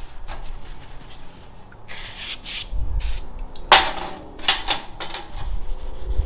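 Steel parts being handled on a workbench: a short scrape, then a few sharp metallic clinks and knocks with a brief ring, the loudest a little after halfway.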